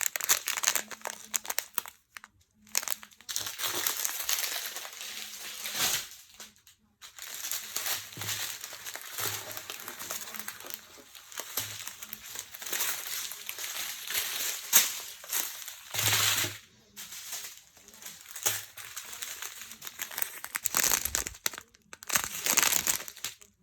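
Small plastic bags of diamond-painting drills crinkling as they are handled and sorted by hand, on and off with a few short pauses.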